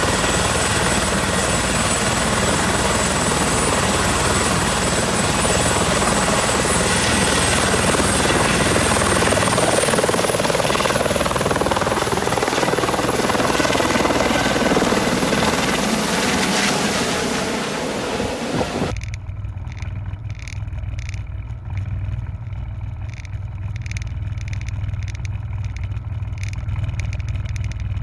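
Helicopter in flight: steady rotor and turbine noise with a thin high whine. About two-thirds of the way through, the sound turns suddenly duller: a low, steady rumble with a faint regular pulsing.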